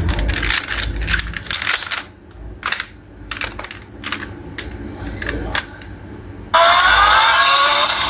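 Sharp plastic clicks and clacks from a toy transformation-belt buckle being handled and worked. About six and a half seconds in, a loud electronic sound with rising tones starts abruptly.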